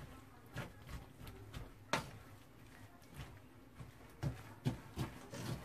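A wire whisk stirring flour and chopped kimchi in a stainless steel bowl: irregular taps and clinks of the whisk against the metal bowl, one sharper clink about two seconds in and a run of knocks near the end.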